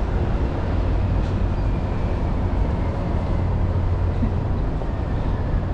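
Steady low rumble of road traffic under an elevated expressway.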